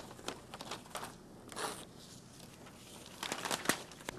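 Double-sided tape being handled by hand: irregular crackles and ticks with short crinkling, tearing sounds, a brief crinkle about one and a half seconds in and a louder cluster of crackles near the end.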